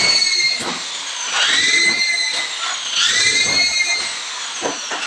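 Corded electric drill running in three long bursts against fiber-cement board on metal studs, its motor whine rising and falling with each burst as the trigger is squeezed and eased.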